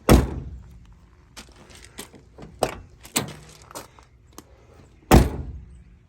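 Mazda Miata door slammed shut twice, about five seconds apart, with lighter clicks between as it is opened again; each closing is a single thunk on new Flyin Miata door bushings and sounds a lot more solid.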